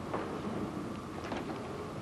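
Quiet pause: the steady low hiss of an old VHS recording, with a few faint clicks.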